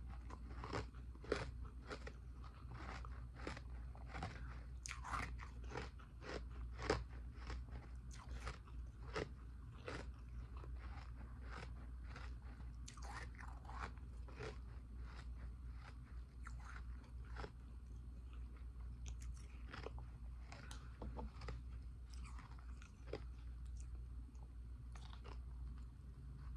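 A person biting and chewing dumpling-shaped ice close to the microphone: a rapid run of sharp crunches, thick in the first half and thinning out later.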